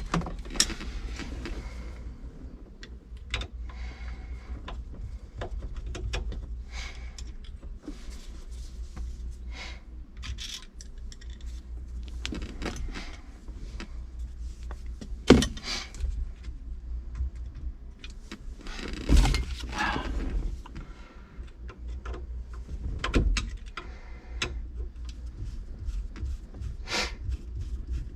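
Scattered metallic clicks, rattles and small knocks of hand tools and parts being worked on a 1968 Mustang's steering column turn signal switch and wiring, over a low steady hum. A sharper knock comes about fifteen seconds in and another about nineteen seconds in.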